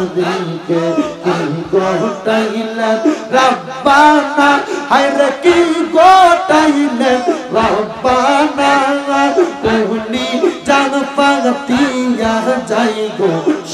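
A man's voice singing a slow, ornamented melody into a microphone, in the sung delivery of a Bengali Islamic waz. The long notes are held and waver, and the voice climbs and falls through melodic turns.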